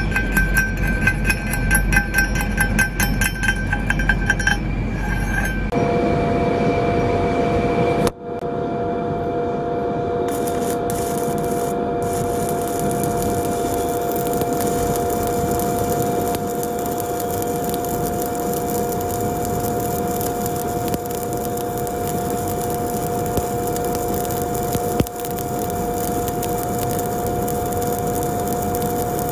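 A chipping hammer strikes the steel weld bead rapidly for about six seconds, each blow a ringing metallic clink. Then a stick-welding arc burns steadily through a fill pass, a continuous crackling hiss with a steady two-note hum beneath it, broken briefly about eight seconds in.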